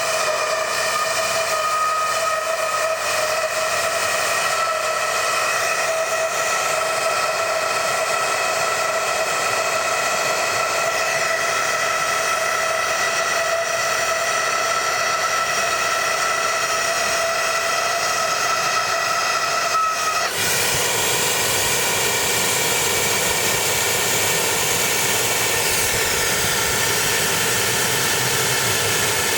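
Steady rushing hiss of flame and air being forced into an aluminium two-stroke silencer to burn out the oil and carbon clogging it. A whistling tone rides on top and cuts off suddenly about twenty seconds in, leaving the rushing sound.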